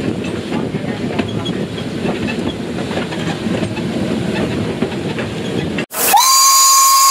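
B25 steam locomotive rumbling and rattling along as heard in its open cab. Almost six seconds in, after a sudden break, the locomotive's steam whistle blows, pulled by cord: one loud, steady note.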